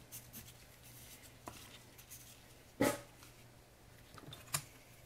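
Faint handling of plastic measuring cups while epoxy resin is poured from one into another, with a few light clicks and one sharp knock about three seconds in, over a low steady hum.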